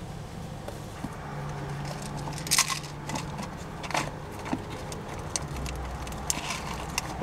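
Rummaging through a bag: scattered clicks, rattles and short crinkles as items are moved about and pulled out.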